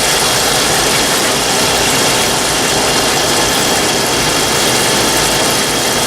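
Fryer oil filtration machine's pump running steadily while it pumps filtered oil back into the fryer, with a constant rushing hiss.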